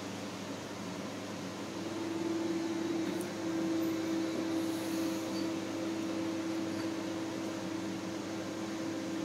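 Steady hum of a household appliance's electric motor, holding one pitch throughout and getting louder about two seconds in.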